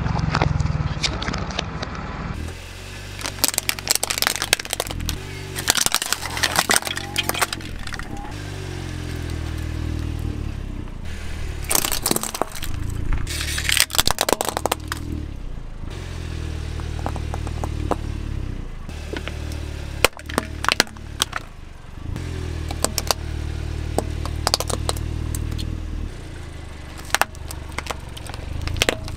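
A car tyre rolling slowly over plastic toys, such as Play-Doh tubs, a chattering-teeth toy and foam-bead balls, crushing them with repeated sharp cracks and crunches over the car's low engine and tyre rumble.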